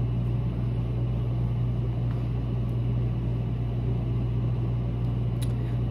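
A steady low hum with a hiss above it, unchanging throughout, and a faint click about five and a half seconds in.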